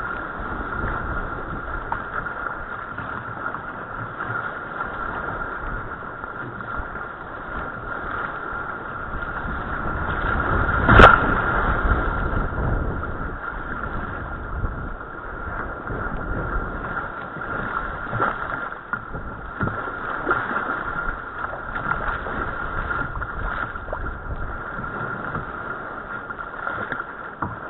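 Rough tidal-race water rushing and splashing against a sea kayak's hull, with frequent small slaps of chop and wind buffeting the microphone. About eleven seconds in, one much louder slap of water against the bow.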